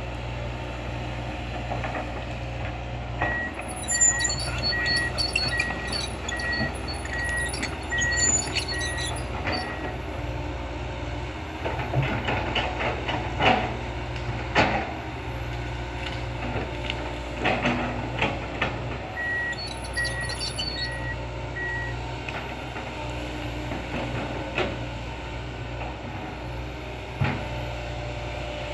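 Komatsu PC200 hydraulic excavator's diesel engine running steadily, with a warning alarm giving regular single-pitch beeps in two spells, at about a second apart. Scattered knocks and clanks come through, loudest in the middle, as the bucket works the soil.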